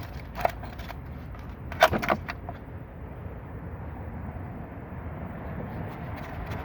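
A few sharp clicks and knocks of a part being handled on the engine as the camshaft sensor is pulled out: one about half a second in and a louder pair around two seconds in. Under them runs a steady low rumble.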